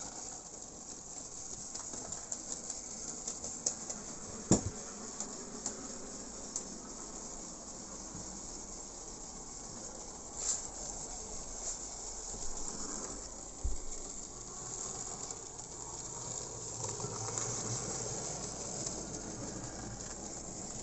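Model railway steam locomotive, newly repaired and being run in, running on its track: the high steady whirr of its small electric motor with many small clicks of wheels over rail joints, and one sharper click about four and a half seconds in.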